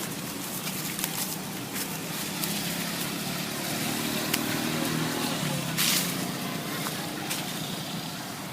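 A motor vehicle passing on a road: its low engine rumble builds and then fades, over steady outdoor background noise with scattered clicks and one brief louder burst near the middle.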